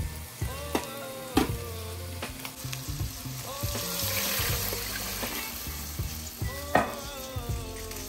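Sliced onions sizzling in hot grease in a pot. About two and a half seconds in, water is poured in, adding a rushing hiss for a few seconds; background music plays underneath.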